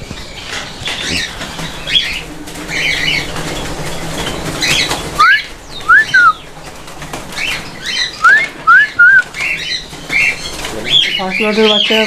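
A flock of cockatiels fluttering in an aviary, with a scatter of chirps and about five loud, short rising whistles in the middle.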